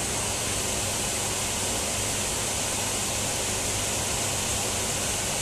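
Steady, even hiss with a faint low hum underneath, unchanging throughout: background noise with no distinct event.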